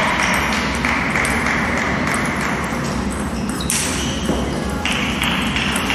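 Table tennis balls clicking off tables and bats in rallies at other tables, irregular sharp pings over a steady hall noise.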